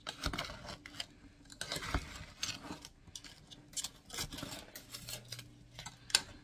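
A spatula stirring and tossing broccoli florets in a metal pan: an irregular run of scrapes, clicks and taps against the pan.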